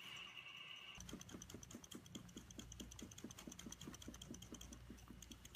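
Sandy Brae water-test reaction vessel, holding biodiesel and calcium hydride reagent, being shaken vigorously by hand. It gives a faint, quick, regular rattle of about five or six strokes a second, starting about a second in.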